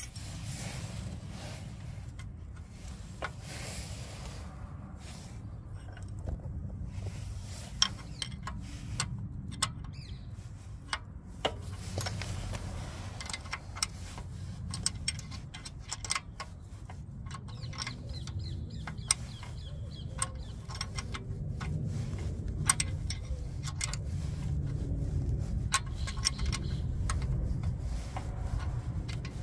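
Scattered light metallic clicks and clinks of bolts and hand tools being handled and fitted at a motorcycle engine's oil pump. Under them is a steady low rumble that grows a little louder in the last third.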